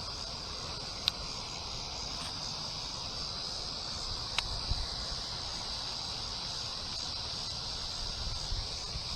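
Steady high-pitched insect chorus, with two short sharp clicks about one second and four and a half seconds in.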